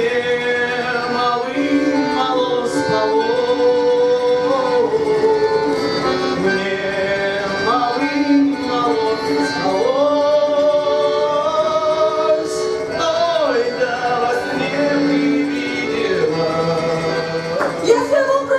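Live Russian folk-style music: a man singing long held notes through a microphone, with accordion accompaniment.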